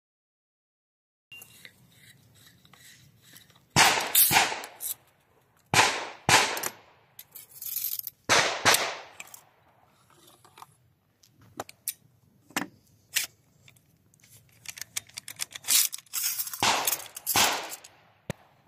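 Metal parts of a Hunt MX4 Tactical semi-automatic shotgun clacking, rattling and scraping as the gun is taken apart on a wooden table. There are a handful of loud, sharp clacks with a brief rattle after each, the first about four seconds in, and lighter clicks between them.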